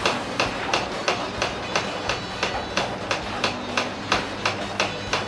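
Electric garage door opener running, a steady motor hum with a regular clicking about three times a second.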